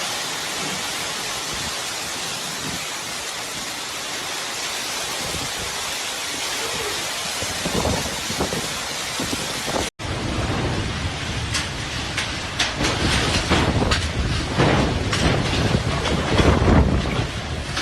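Storm noise: heavy rain hissing steadily. About ten seconds in it cuts to a louder, gustier stretch where many sharp knocks of hailstones striking come over a low rumble of strong wind.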